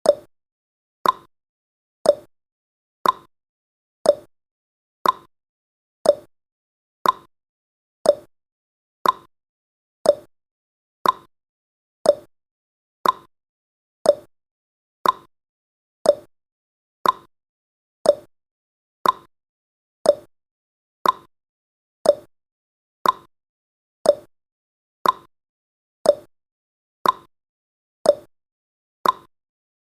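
Countdown timer's ticking sound effect: one short, crisp tick every second, each with a brief ring that dies away at once.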